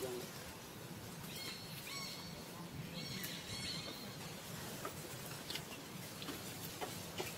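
High-pitched squeaking animal calls in two stretches of about a second each, over a steady outdoor hiss.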